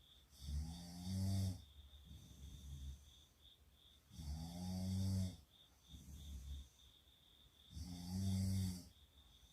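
Girls snoring in their sleep: three loud snores about every three and a half seconds, with softer snoring breaths between them.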